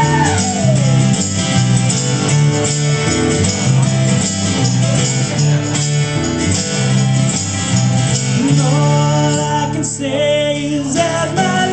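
Live band playing the opening of a rock song: guitars strumming over a steady bass line, with a voice singing near the end.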